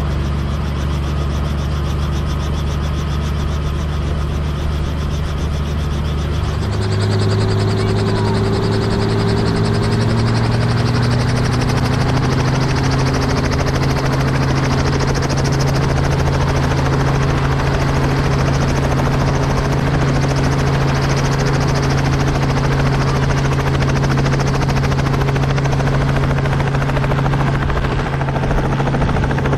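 Tour helicopter running close by, its turbine and rotor a steady drone; about seven seconds in the pitch rises and it gets louder as it powers up to take off, then holds steady.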